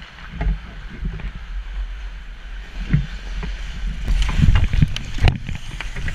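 Ice hockey play heard from a camera worn by the goaltender: a steady low rumble with skates scraping the ice and sticks clacking, growing busier as players close in on the net, and one sharp crack about five seconds in.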